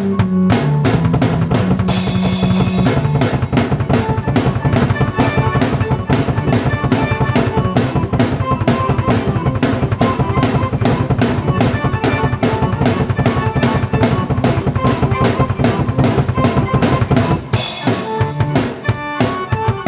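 Drum kit and keyboard played together by one performer: a fast, busy drum pattern over sustained keyboard notes, with a cymbal crash about two seconds in and another near the end.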